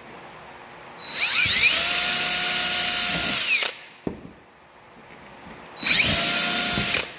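Cordless drill running in two bursts, a longer one and then a short one, each rising to a steady whine and winding down, as a small bit bores a hole through the trailing edge of a horseshoe crab's shell.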